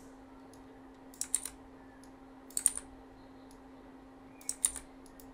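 Computer keyboard typing in three short bursts of keystrokes over a faint steady hum.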